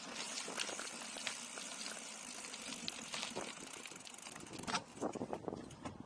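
Gravel crunching and crackling steadily under movement along a loose-surfaced track, a dense run of small clicks, with a few louder crunches near the end.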